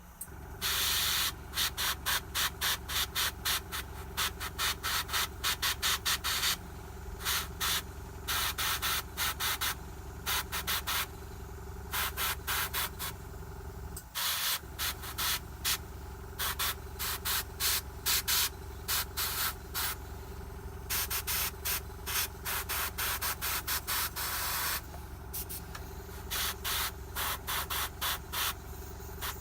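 Airbrush spraying paint in many quick, short trigger pulses of hiss, with a few longer sprays, over the steady hum of its air compressor, which drops out briefly about halfway through.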